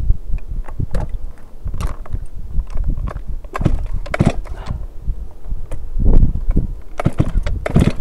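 Irregular knocks, taps and bumps from a chainsaw and climbing rigging being handled up in a tree, over a low rumble.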